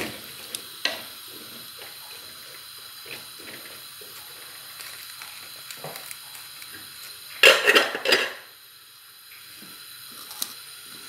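Wooden spoon knocking against an aluminium cooking pot of simmering curry, over a steady low sizzle. About seven and a half seconds in comes a loud clatter lasting nearly a second as the pot's aluminium lid is set on.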